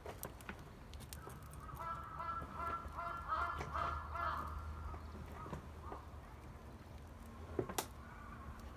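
A run of honking bird calls, goose-like, from about a second in until about four and a half seconds in. A few sharp cracks come over a low steady rumble, the loudest near the end.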